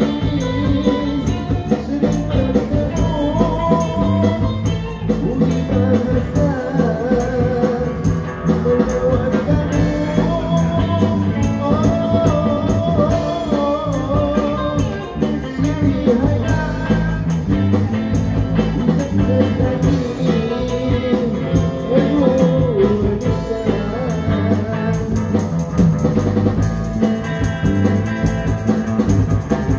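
Live busker band playing a 1960s-style Malay pop song: electric guitar and drum kit keep a steady beat under a wavering melody line.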